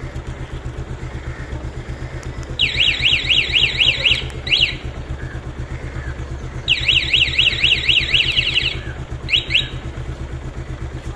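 Bajaj Pulsar 220F's single-cylinder engine idling steadily while an aftermarket motorcycle security alarm siren sounds twice, each time a rapid warbling tone of about a second and a half followed by a couple of short chirps.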